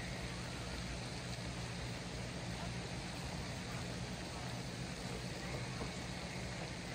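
Steady lakeside night ambience: a constant low hum under an even background hiss, with no distinct events.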